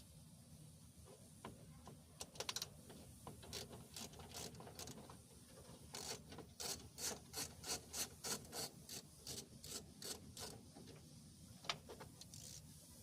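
Ratchet wrench clicking in a fast, even run of strokes, backing out a side-mirror mounting nut, with a few scattered clicks before and after.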